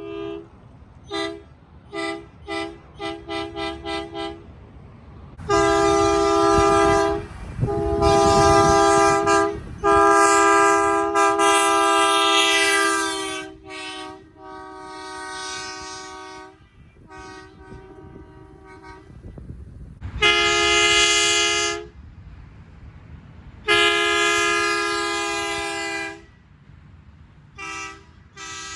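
Hadley "Bully" truck horn sounding a two-note chord: a run of about eight short toots, getting quicker, then a series of long blasts of two to three seconds each, some of them quieter, and two quick toots at the end.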